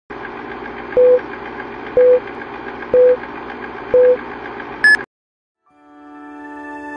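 Film-leader countdown sound effect: a steady film-projector clatter with a short beep once a second, four times, then a higher, shorter beep just before it cuts off suddenly. Soft music fades in near the end.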